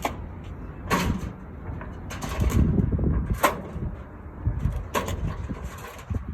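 Irregular knocks and clunks from a sailing catamaran's mast, a handful of sharp hits one to two seconds apart over a low rumble. The crew take the noise for a sign that something is wrong in the mast.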